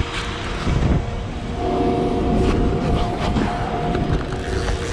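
The boat's outboard engines running, with wind rushing over the microphone; a steady higher tone joins for a couple of seconds starting about a second and a half in.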